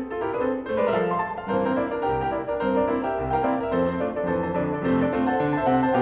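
Background piano music: a steady tune of held chords over a moving bass line.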